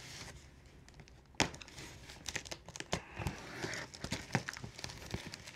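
Cardboard parcel being handled and its packing tape cut and pulled with a small blade: a sharp knock about a second and a half in, then scattered crackles, scrapes and rustling of tape and cardboard.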